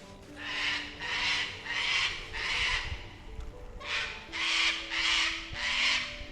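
Harsh, screeching bird calls: a run of about four calls, a short pause about three seconds in, then about five more.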